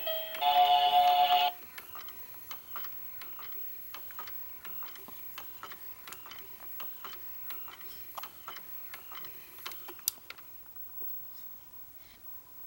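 An electric baby swing's built-in music plays a last loud chord and cuts off about a second and a half in. The swing's mechanism then ticks steadily, several times a second, ending with a sharper click about ten seconds in.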